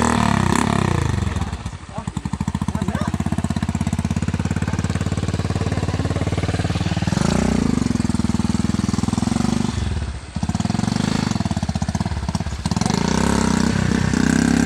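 Heavily loaded Honda motorcycle's single-cylinder engine labouring up a muddy slope, revving up and down, with the throttle eased off briefly a few times.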